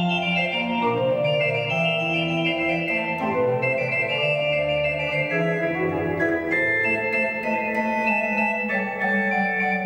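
Pipe organ playing dense many-voiced music: several held notes at once over low sustained bass notes, with the lines moving steadily throughout.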